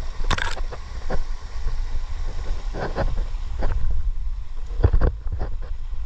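Wind buffeting the microphone, a steady low rumble, broken by scattered knocks and scrapes, about a dozen, as the camera is jostled during a scramble over boulders.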